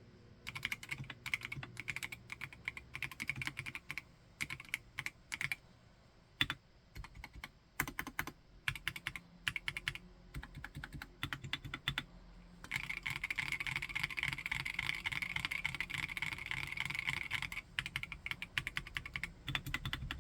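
Typing on a mechanical keyboard with a silicone housing: key strokes at an uneven pace, with short pauses. About two-thirds of the way in comes a five-second run of very fast, continuous typing.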